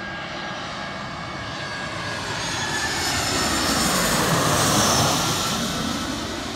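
Airbus A320-family twin-engine jet airliner on final approach, passing low overhead. Its engine noise builds to a peak about four to five seconds in, with a high whine that falls in pitch as it goes over, then it starts to fade.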